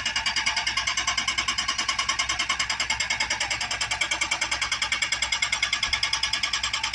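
Small hydraulic breaker on an excavator hammering steadily, a fast even rattle of about nine blows a second.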